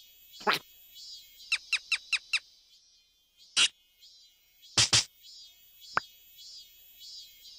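Cartoon sound effects: short squeaky blips and pops, one after another, with a quick run of four about a second and a half in and a pair around five seconds. Faint, evenly repeating high chirping runs underneath.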